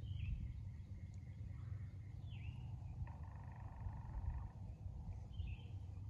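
Wild birds calling outdoors: short, high, falling calls a few seconds apart, and a longer, lower call about three seconds in, over a steady low rumble.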